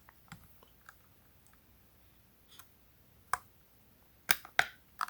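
Scattered light plastic clicks and taps from handling a power bank, a few faint ticks at first and then a handful of sharper clicks in the second half, three of them close together near the end.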